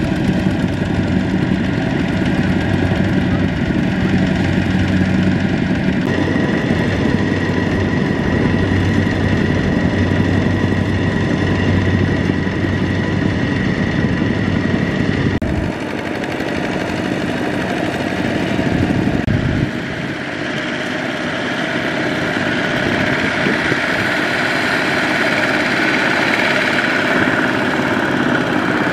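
Two-wheel walking tractor's single-cylinder diesel engine running steadily as it pulls a loaded trailer through deep mud. Its tone changes abruptly a few times as the takes switch.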